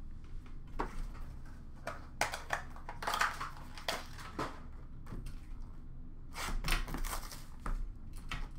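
Hands handling small cardboard trading-card boxes: scattered light clicks, taps and rustles.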